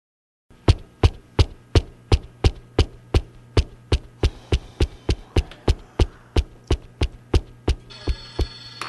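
Regular sharp knocks, about three a second, slowly growing fainter, over a low steady hum; a few higher steady tones join near the end.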